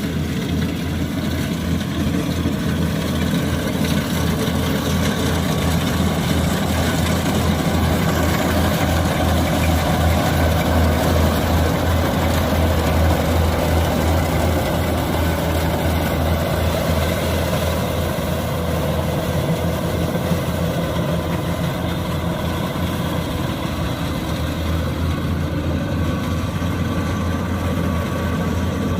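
Kubota combine harvester's diesel engine running steadily while harvesting rice, a continuous low engine hum that grows a little louder in the middle.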